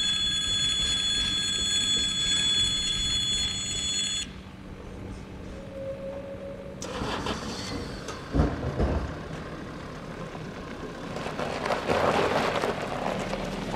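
Level-crossing warning signal sounding a steady high electronic tone that cuts off abruptly about four seconds in. Road vehicles then move off over the crossing, with a couple of heavy thumps around eight seconds and louder vehicle noise near the end.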